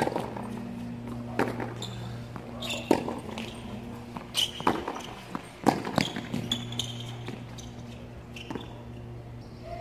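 Tennis ball struck by rackets and bouncing on a hard court during a rally: a string of sharp pops about one to two seconds apart, with a steady low hum underneath.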